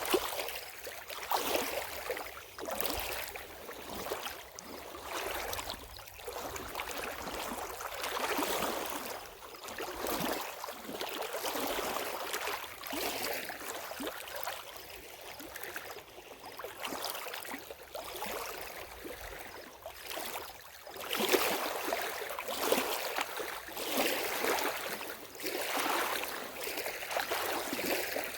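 Lake water lapping in small waves, a wet sloshing that swells and ebbs every second or two, a little louder in the last third.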